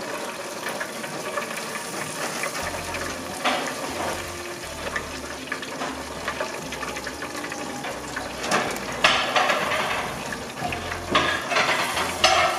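Metal tongs clinking and scraping against a wire frying basket as fried chicken pieces are worked out of it, in several short bursts over a steady hiss.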